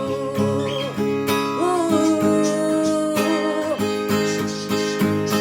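Song music: strummed acoustic guitar with a steady beat under long, wavering held melody notes, between sung lines.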